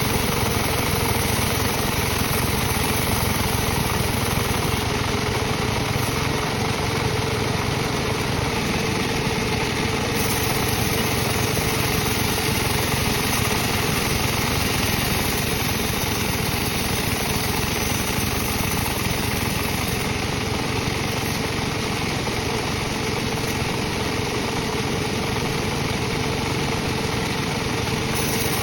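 Sawmill machinery running with a steady, unchanging drone.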